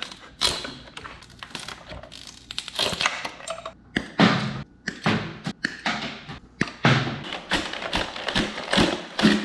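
Hands pulling aftermarket LED strip lights and their wiring off a motorcycle frame and clipping the wires: an irregular run of sharp clicks, taps and knocks, with the rustle of wires being gathered up.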